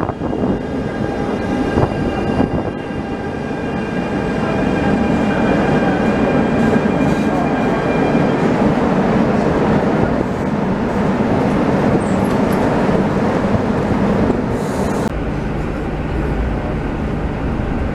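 Electric metro train running into an underground station and slowing, with a rumble of wheels on rail and steady whining tones from its motors that fade out as it slows. About fifteen seconds in, the sound changes to the duller, low rumble heard inside a passenger car.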